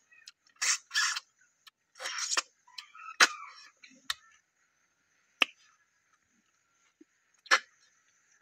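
Sharp sucking slurps and pops of a person sucking snail meat out of the shells, one snail at a time, with pauses between them; the first couple are longer slurps and the later ones short, sharp pops. A faint steady high tone runs underneath.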